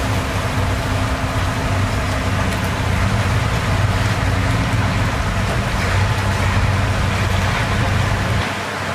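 Heavy diesel engine of earthmoving machinery running steadily with a deep, even drone. The lowest rumble falls away shortly before the end.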